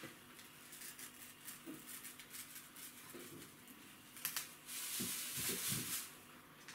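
Plastic bag crinkling and faint scraping as a small knife is worked at a root inside it, with a louder burst of crinkling from about four seconds in and a few soft knocks as the bag is set down on the table.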